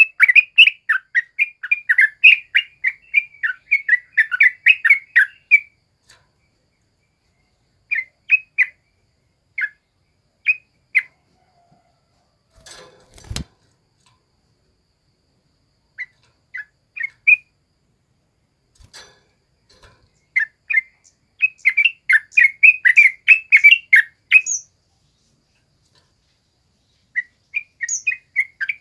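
Yellow-vented bulbul singing in its wild-type style: fast runs of loud notes, broken by pauses with only a few scattered notes, then another fast run after about twenty seconds. A brief thump about halfway through.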